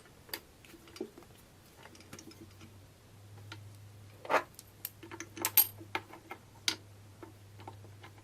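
Light clicks and metallic clinks of carbon brushes and brush-holder parts being handled and fitted onto a large DC elevator motor, irregular, with a few sharper clinks around the middle.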